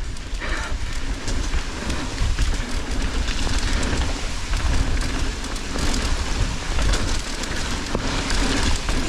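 Mountain bike riding down a wet trail in the rain: a steady hiss of tyres and water, with frequent rattles and knocks from the bike over rough ground and a low rumble of wind on the microphone.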